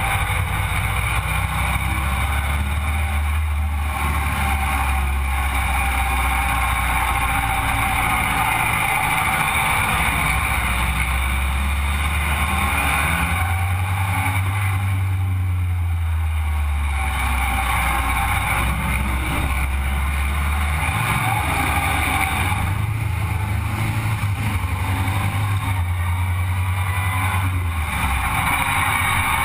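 Sandrail's engine running while the buggy is driven on the street, its low note shifting up and down several times as it speeds up and slows, over a steady rush of road and wind noise.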